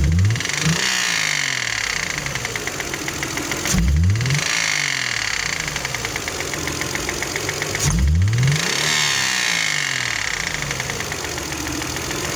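Toyota 1MZ-FE V6 engine revved three times, about four seconds apart, each time rising and falling back toward idle. A rapid, even knock runs under it; the knock appeared right after a spark plug change, and the owner has not found its cause.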